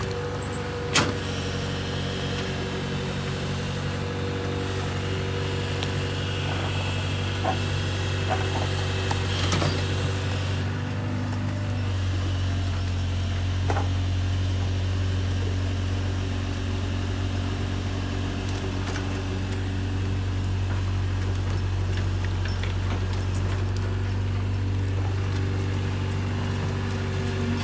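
Kobelco excavator's diesel engine running steadily, with a sharp metallic knock about a second in and a few lighter clanks. About eleven seconds in, the engine note grows louder and deeper.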